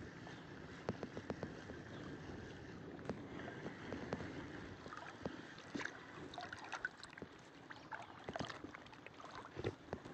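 Shallow sea water lapping and sloshing, with many small irregular clicks and brief splashes, busier near the end.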